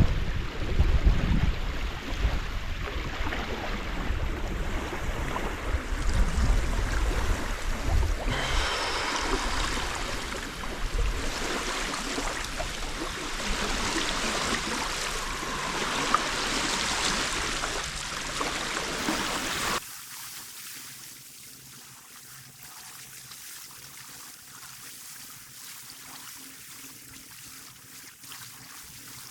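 Wind buffeting the microphone over the wash of water. It cuts off abruptly about twenty seconds in, leaving a much quieter steady background.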